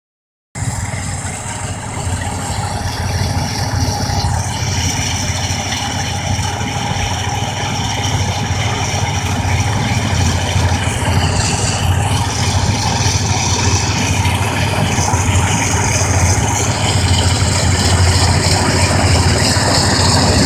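AGRI-70 rice combine harvester running steadily, its engine and working machinery making a continuous mechanical drone. It starts about half a second in and grows slightly louder toward the end.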